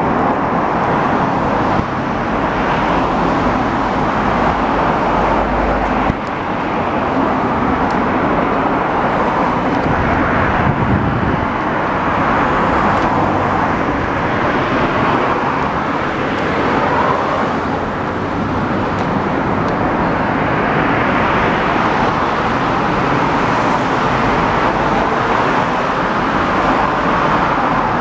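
Yamaha V-Max 1700's V4 engine running steadily through an aftermarket SP Tadao slip-on muffler, with its level rising and falling a little.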